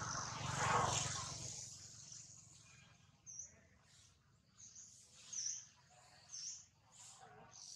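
Small birds chirping: several short, high chirps spaced a second or so apart, after a brief burst of noise in the first second or so.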